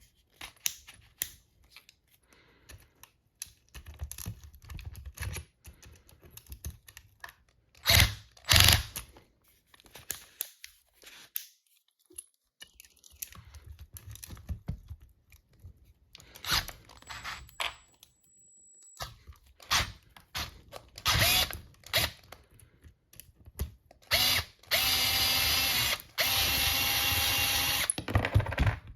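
Clicks and clatter of tool parts being handled, then a power drill running steadily for about three and a half seconds near the end.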